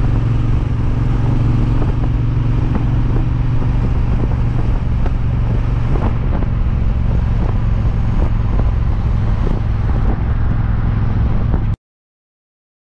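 Triumph Bobber's 1200 cc parallel-twin engine and exhaust running steadily while the motorcycle cruises, heard from the rider's seat. The sound cuts off suddenly near the end.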